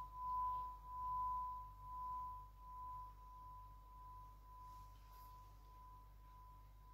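Handheld singing bowl sung by rubbing a wooden mallet around its rim: one steady ringing tone that swells and sinks in slow waves about once a second, then dies away once the mallet is lifted.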